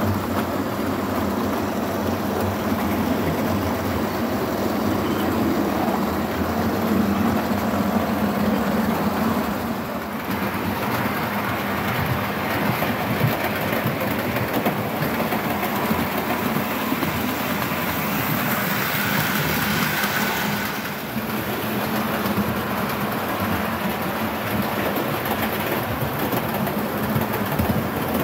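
Model trains running on a model railway layout: a steady noise of the locomotives' small electric motors and wheels rolling along the track.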